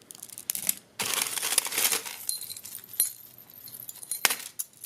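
Costume jewelry clinking and jangling as the pieces are handled and sorted, with several sharp clicks and a brief ringing of metal or glass.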